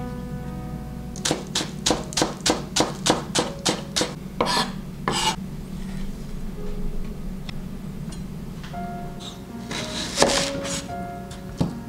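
Chef's knife chopping vegetables on a bamboo cutting board. A quick run of about a dozen even strokes, roughly three a second, then a few slower cuts near the end, over soft background music.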